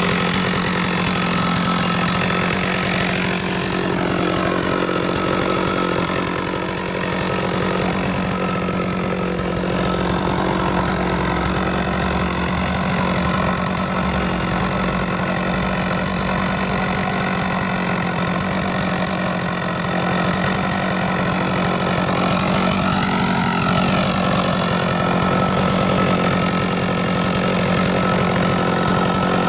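Two-stroke chainsaw on a chainsaw mill, running at a steady high speed as it rips lengthwise through a large log.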